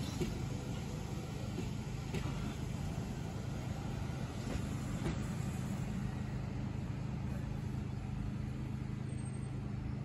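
Central line 1992-stock tube train running slowly past, a steady low rumble with a motor hum that firms up about halfway through.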